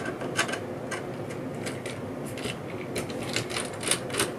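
Irregular small clicks and taps of hard plastic and metal parts being handled while a circuit board is taken out of an old handheld computer.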